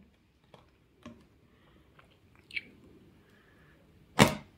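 Side cutters working at the plastic label of a plastic water bottle: a few faint clicks and crinkles, then one short, loud crunch of plastic about four seconds in.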